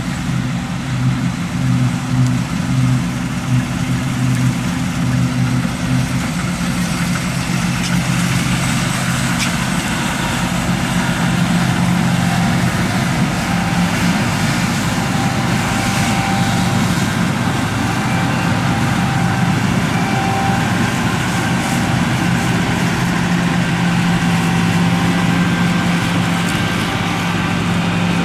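Fendt 6275 L combine harvester running steadily, a continuous engine hum with the machinery's noise over it; the low note shifts a little a few seconds in and grows stronger near the end.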